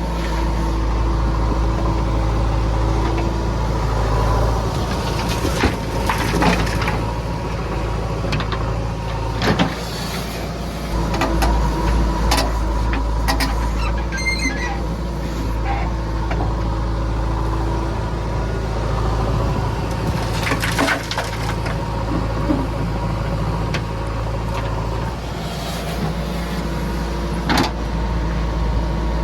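A JCB 3DX backhoe loader's diesel engine running steadily under work. Sharp metallic knocks and clunks come every few seconds as the machine loads murrum into a truck.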